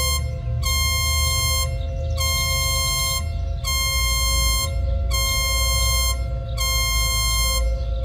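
Synthesized emergency alert alarm: a chord of steady electronic tones pulsing on and off about every second and a half with short gaps, over a continuous lower tone and a heavy low rumble.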